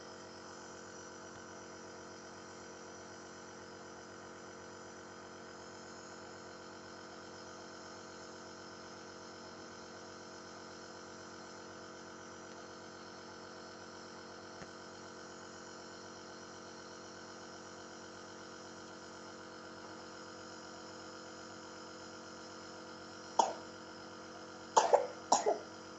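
Nebulizer machine humming steadily during an inhalation treatment for a cough with phlegm. Near the end the child coughs three or four times, short loud coughs that are the loudest sounds here.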